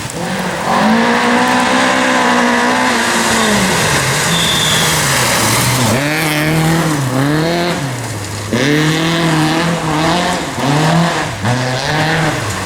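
Rally car engine at competition pace: held at high revs at first, dropping about three and a half seconds in, then revving up and down in quick swells roughly once a second as the driver works the throttle and gears.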